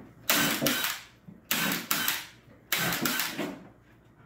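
Cordless drill driving screws into the wooden boards of a gate, in three bursts of about a second each with short pauses between.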